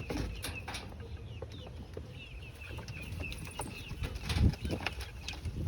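Young hens making many short, high chirping clucks in quick succession, with a low thump about four seconds in.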